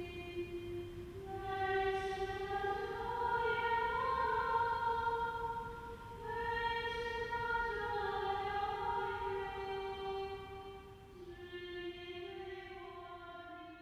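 Choral music: voices singing long, slowly changing held notes, fading out near the end.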